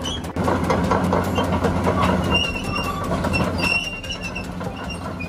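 Crawler excavator travelling: its steel tracks clank and rattle over a steady diesel engine hum, with brief high squeals from the track links a couple of times.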